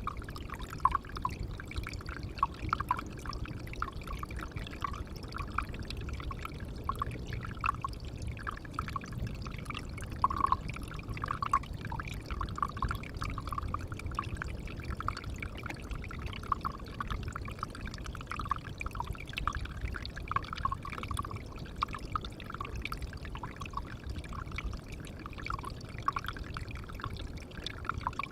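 Water of a pond trickling and splashing steadily, a continuous patter of small drops falling into the water.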